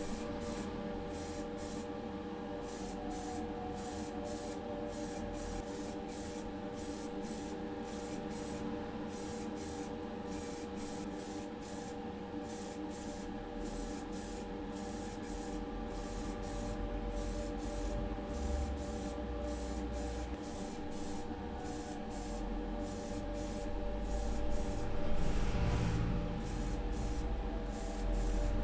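Primer being sprayed onto a diecast model car: a continuous steady hiss of spraying, over a steady mechanical hum.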